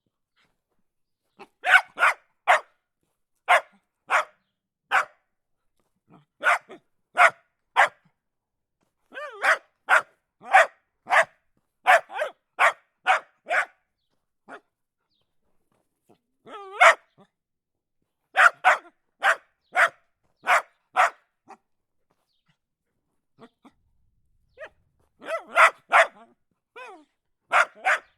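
A dog barking in short volleys of two to five barks, with pauses of a second or more between volleys. A few of the barks slide in pitch.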